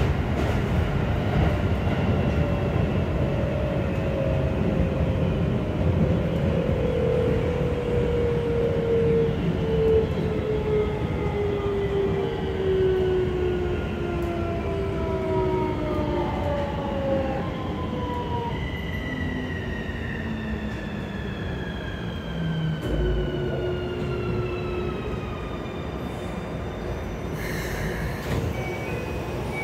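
Keikyu New 1000 series train with a Siemens IGBT VVVF inverter, heard from on board, running over the rails as it slows. Several whining inverter-motor tones fall steadily in pitch over a steady rumble of wheels on track. A brief hiss comes near the end.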